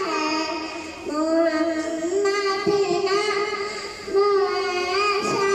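A young girl singing a naat, an Urdu devotional poem in praise of the Prophet Muhammad, into a microphone, in long held notes that waver and bend, with short breaks about a second and about four seconds in.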